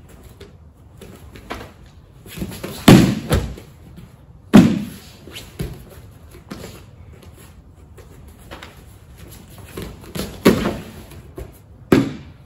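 Thuds and slaps of a martial arts self-defense drill on foam mats: a roundhouse kick blocked and caught, and the kicker thrown down onto the mat. There are several sharp impacts, the loudest about three seconds and four and a half seconds in, and more near ten and twelve seconds.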